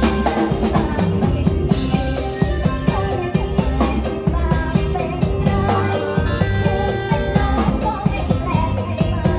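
Thai Isan band music played live: electric keyboard carrying the melody over drum kit and bass, with a steady beat.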